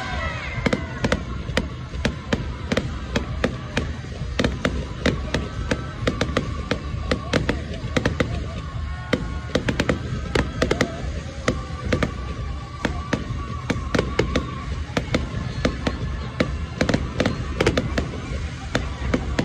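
Fireworks going off in quick succession: many sharp bangs and crackles a second over a constant low rumble, with music playing underneath.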